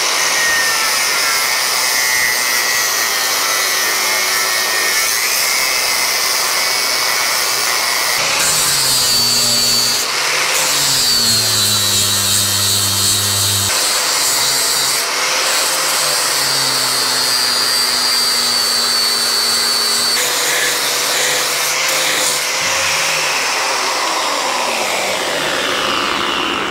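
Corded angle grinder grinding a steel bracket stump, throwing sparks. The motor's high whine dips in pitch each time the disc bites into the metal and rises again as it is eased off, then the grinder spins down near the end.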